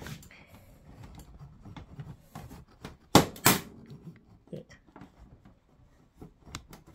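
Plastic retaining clips of a Samsung UN58TU7000F's screwless back cover popping loose as a pen is pried along the seam: light scraping and ticking, with two loud sharp snaps in quick succession about three seconds in.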